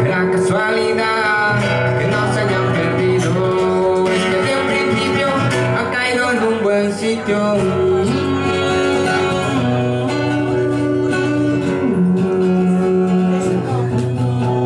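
Live solo acoustic performance: a cutaway acoustic guitar played with fingers and strums under a man's singing voice, close to the microphone.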